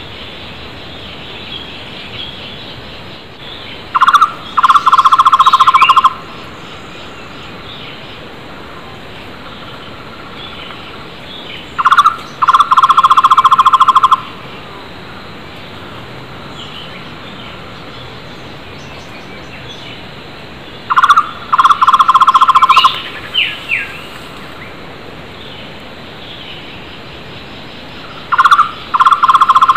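A flame-fronted barbet (takur tohtor) gives its loud, rapid trilled call four times, each burst lasting about two seconds, roughly every eight seconds. Other wild birds make short, higher chirps in between.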